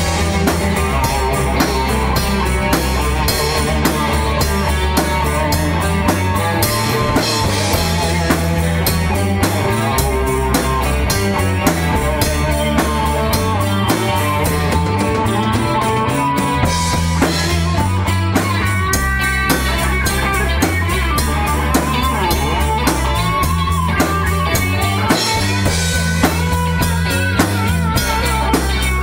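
Rock music with drum kit, bass and electric guitar playing at a steady tempo.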